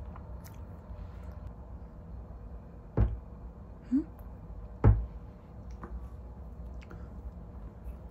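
Two dull knocks about two seconds apart as a cat bumps and rubs its head against a cabinet door holding a wall-mounted catnip ball, with a short rising squeak between them.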